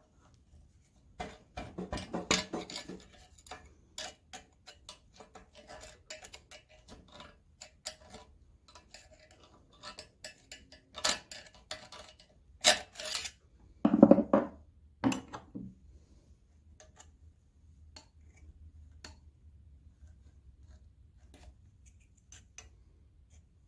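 Metal-on-cast-iron scraping and clicking as the old wet-cylinder-sleeve O-ring is worked out from inside the block of a McCormick-Deering Type M engine. Scattered light clicks, with a few louder clusters of scraping and knocks, the loudest a little past halfway.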